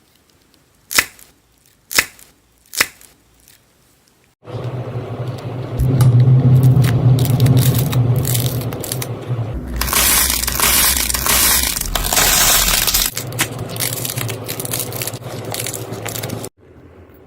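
Crunchy slime being handled: three sharp crackles, then about twelve seconds of dense, continuous crunching and crackling that is loudest in the middle and cuts off suddenly near the end.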